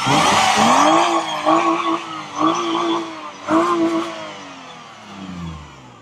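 Toyota Mark II JZX90's engine, a freshly installed contract engine, being revved while the car stands still: a sharp rise in revs, several quick blips about a second apart, then the revs falling away and the sound fading near the end.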